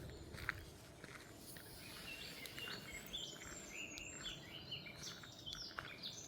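Birdsong: quick series of short, high chirps from a small bird, starting about two seconds in. Faint crunching footsteps on a path at the start.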